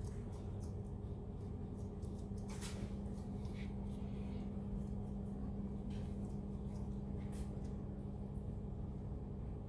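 Faint steady low hum, with a few soft brief handling rustles and clicks.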